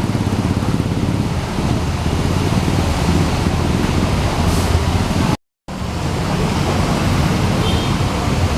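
Diesel bus engine idling close by, a steady low rumble, over a steady hiss of rain. The sound cuts out completely for a moment about five and a half seconds in, then resumes.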